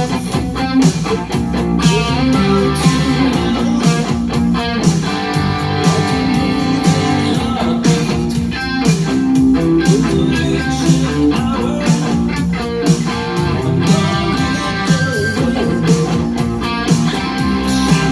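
Electric guitar with a single bridge humbucker playing rhythmic riffs, picked steadily, over a full backing track with a steady drum beat.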